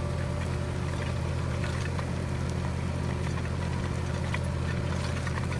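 Tractor engine running steadily, driving the hydraulics of a Kadıoğlu sensor-arm rotary hoe as it tills the soil around a tree, with scattered light ticks over the drone.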